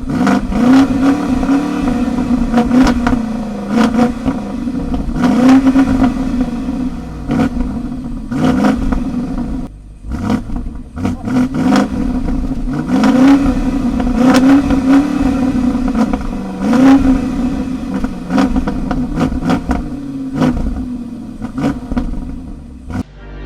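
BMW X7 M50i's 4.4-litre twin-turbo V8 being revved over and over, its pitch rising sharply with each blip of the throttle and falling back, with short sharp cracks between revs.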